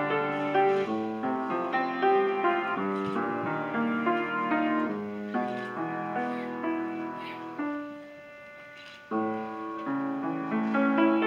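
Solo grand piano playing a classical piece in flowing runs of notes. Nearly eight seconds in the playing dies away to a quiet held sound for about a second and a half, then resumes strongly.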